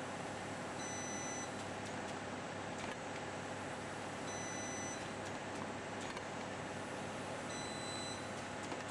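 Easybeat 14000 inverter spot welder running with a steady hum while firing single-sided spot welds on a steel sheet. It gives a short electronic beep three times, about three and a half seconds apart.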